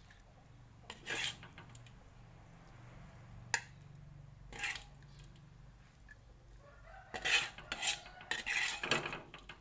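Metal ladle scraping and clinking against a metal wok and a plate as cooked stir-fry is scooped out. The strokes are scattered at first, with one sharp clink about three and a half seconds in, then come closer together and louder near the end.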